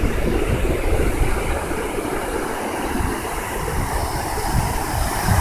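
Ocean surf washing on a beach, mixed with wind buffeting the phone's microphone in a gusty low rumble.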